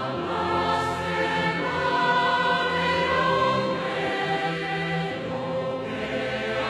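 A choir singing a Jehovah's Witnesses hymn (a Kingdom song) in long held notes, with the melody moving slowly from chord to chord.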